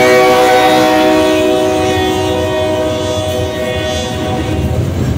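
Diesel freight train's air horn sounding several tones at once, fading out about four seconds in as the locomotives pass. Under it, the low rumble of the train rolling by.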